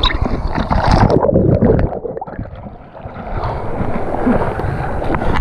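Whitewater rapids rushing and splashing over a helmet-mounted camera as a kayak runs a wave, water crashing on the microphone. The noise drops briefly about halfway through, then returns as a steady rush.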